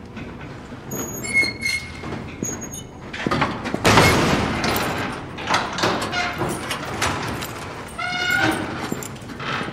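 Steel garage doors being shut and locked: squealing hinges, a loud clanging bang about three to four seconds in, then metal knocks and rattles at the latch and padlock, and another short squeal near the end.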